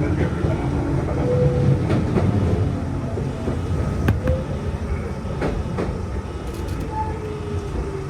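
Shizuoka Railway 1000 series electric train running, heard from on board: a steady rumble with sharp clicks of the wheels over rail joints, and a faint whine that falls slowly in pitch in the second half.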